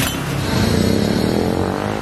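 Music playing, with a brief click right at the start.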